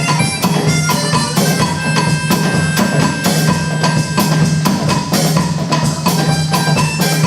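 Percussion-led music: many quick strikes, several a second, with short ringing pitched notes over a steady low drone.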